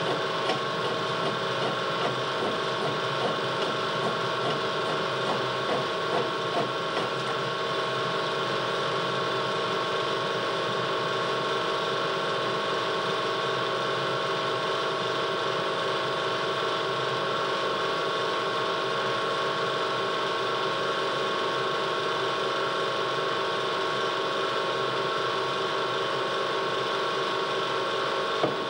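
Old potter's wheel, once hand-cranked and now driven by an electric motor, running with a steady mechanical whir and rattle. There are a few irregular knocks in the first seven seconds or so and a sharp click near the end.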